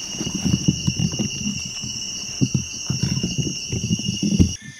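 Night insects trill steadily at two high pitches over irregular crunching and rustling of footsteps moving through forest leaf litter. Both stop abruptly near the end.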